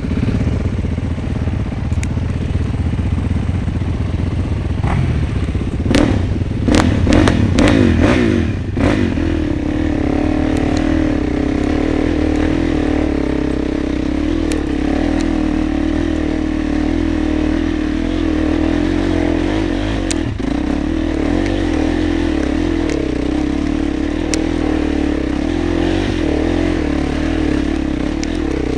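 Enduro dirt bike engine running, with a burst of revs and several sharp clattering knocks around six to nine seconds in, then settling into a steady drone.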